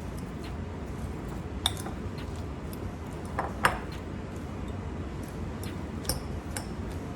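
Kitchen utensils clinking and tapping against a bowl a handful of times, the sharpest knock near the middle, over a steady low hum.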